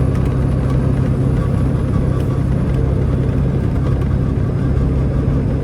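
Semi truck driving at steady speed: an even low engine drone mixed with road noise.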